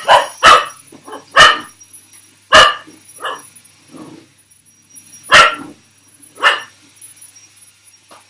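A dog barking repeatedly at a running vacuum cleaner: about six loud, sharp barks with a few quieter ones between, irregularly spaced, over the vacuum's faint steady high whine.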